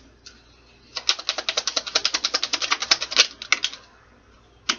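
A deck of tarot cards being shuffled, a rapid run of card clicks at about a dozen a second lasting nearly three seconds, then a single card snap near the end.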